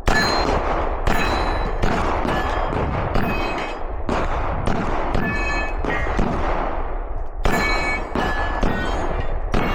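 A 9x19 Glock 17 Gen 6 pistol fired in a fast string at steel targets, about one shot every 0.6 to 0.8 seconds, with a short gap near the middle. Several shots are followed by the brief ring of a struck steel plate.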